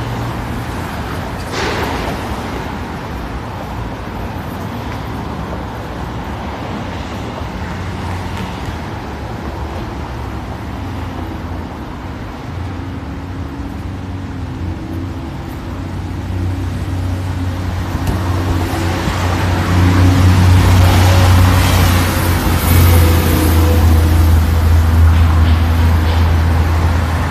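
Street traffic running steadily on a busy city road, growing louder about two-thirds of the way through as vehicles pass close by with a heavy low rumble.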